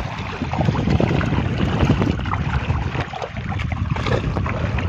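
Water splashing and sloshing, with wind buffeting the microphone.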